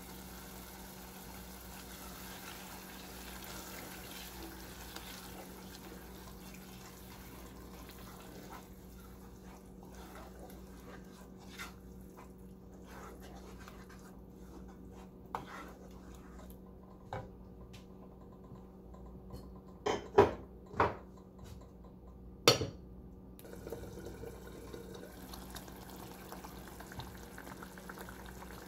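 Tomato and onion sauce simmering and bubbling in a saucepan as it is stirred with a wooden spoon, over a steady low hum. Several sharp knocks of the spoon against the pot come in the second half, two of them much louder than the rest.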